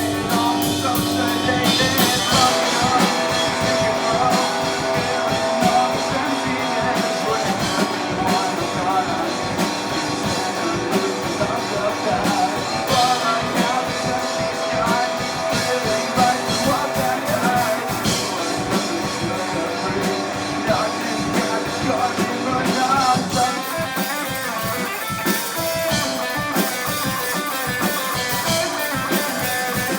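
Rock band playing: electric guitar over a drum kit keeping a steady beat.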